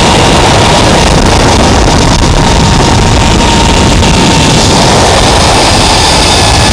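Loud wind rushing over the microphone on a fast zipline run, with a thin whine from the trolley's pulleys running along the steel cable that slowly falls in pitch and fades.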